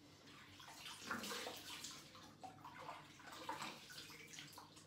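Water splashing in a bathroom sink as hands scoop it up and splash it onto the face to rinse off face wash, in uneven, irregular splashes.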